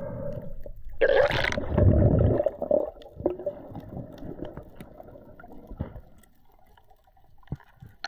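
Water rushing, splashing and gurgling around a freediver's mask-mounted camera, loudest a second or two in, then settling to quieter underwater sounds with a few faint clicks.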